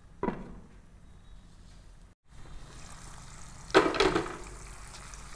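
A glass pan lid clinks down onto a pan about a quarter second in. Later comes a louder, ringing clatter of cookware over the faint sizzle of creamy gravy simmering.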